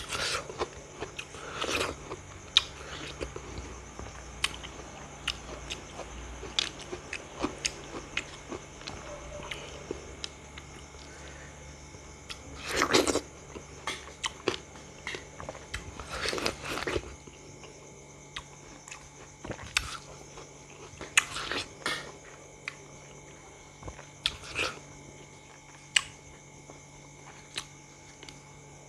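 Close-miked biting and chewing of crisp raw fruit: scattered crunches and wet chewing, with a few longer, louder bites about halfway through and again around three quarters of the way.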